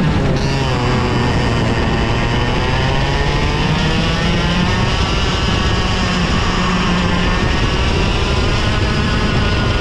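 Two-stroke TaG Cadet racing kart engines running at race pace. Their pitch drops sharply right at the start, then climbs and falls again and again as they rev.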